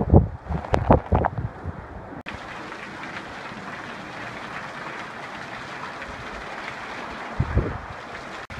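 Torrential monsoon rain, heard as a steady, even hiss. In the first two seconds strong wind gusts buffet the microphone, then stop abruptly, leaving the rain hiss alone. One more brief gust hits the microphone near the end.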